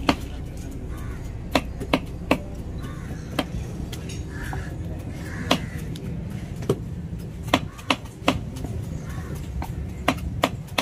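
Large knife chopping a tuna loin into chunks on a wooden chopping block: about a dozen sharp, irregular knocks as the blade goes through the flesh into the wood.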